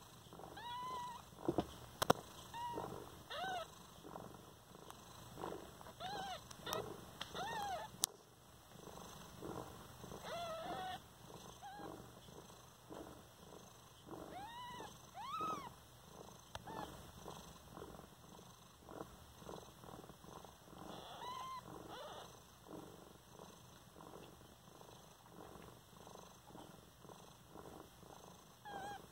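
A nursing mother cat purring steadily, with newborn kittens giving many short, thin squeaks that rise and fall in pitch, most of them in the first half. Two sharp clicks, the louder about two seconds in.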